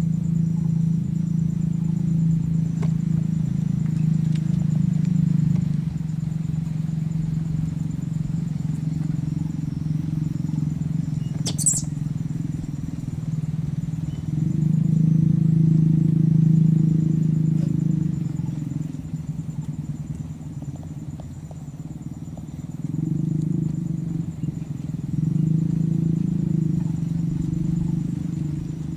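A steady low motor hum that swells and fades several times, with a faint high whine above it and one sharp click about twelve seconds in.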